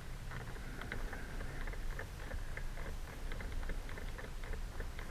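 Screwdriver tip clicking and scraping against a small Phillips screw in the steering column cover as it is worked loose, a run of small irregular ticks over a low hum.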